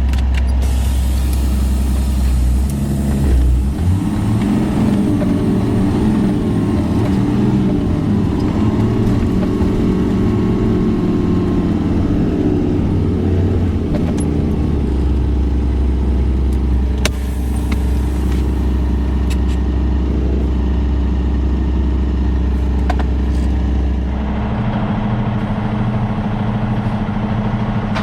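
Semi-truck diesel engine and road noise heard from inside the cab while driving: a steady low drone whose engine note shifts about four seconds in and again near the end.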